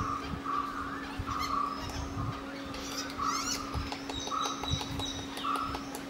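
Wild birds calling: one repeats a short, rasping call about once a second while others give high chirps and whistles, with a cluster of sharp clicks about halfway through and a steady low hum underneath.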